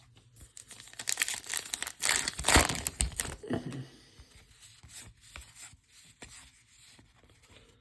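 A trading card pack wrapper torn open, a loud stretch of tearing and crinkling for about two seconds, followed by softer rustles and light clicks of the cards being handled.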